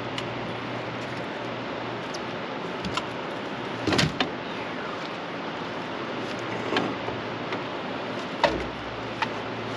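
Steady rushing noise with scattered sharp knocks and thumps against a fishing boat as a fish is netted and brought aboard. The loudest knocks come about four seconds in, and a heavier thump comes near the end.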